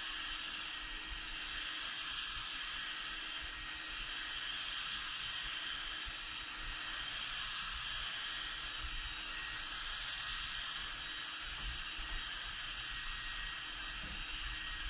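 Turbine-fed HVLP spray gun spraying Plasti Dip liquid rubber coating: a steady hiss of air and atomised coating.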